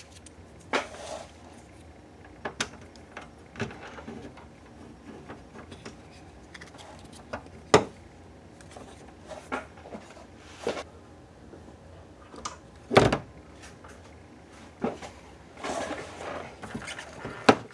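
Scattered light clicks and knocks of a plastic antenna base being handled and set down onto a car's sheet-metal roof, the loudest knock about thirteen seconds in, with some rustling a few seconds before the end.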